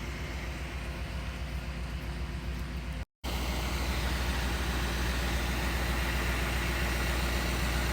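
An engine idling steadily, with a brief cut-out about three seconds in, after which it comes back louder.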